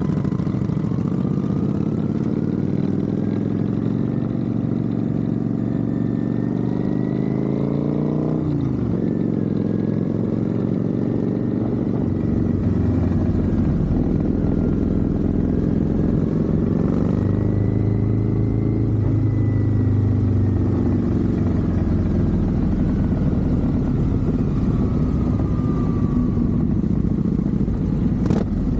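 Motorcycle engine running through Vance & Hines aftermarket exhausts, its pitch climbing and falling several times as the rider accelerates and backs off, with a sharp drop about eight seconds in.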